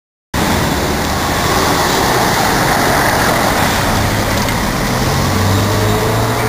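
Steady street traffic noise, with a vehicle engine running and growing louder in the second half.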